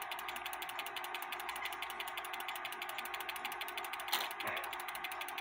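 Regula 701 eight-day cuckoo clock movement running with a fast, even clicking, and a louder clunk or two about four seconds in. The movement is out of adjustment: its stop levers are not stopping the figure, which keeps coming back in and going out again.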